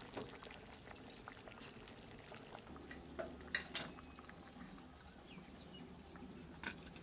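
Khichuri bubbling faintly in a large aluminium pot, with a few sharp knocks and clinks as the pot is gripped with cloths and lifted off the clay stove.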